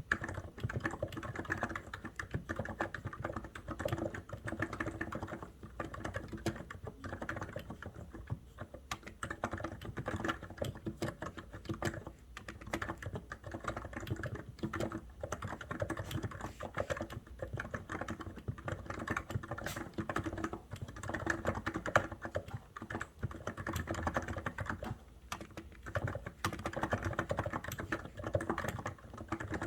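COX Endeavour keyboard being typed on continuously, a rapid, uneven stream of key clicks with short pauses between runs.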